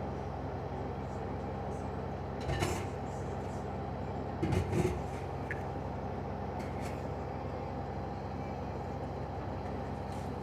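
LG front-loading washing machine spinning at high speed in its cotton spin cycle: a steady motor and drum hum. A brief knock comes about two and a half seconds in, and a short clatter of knocks around the middle.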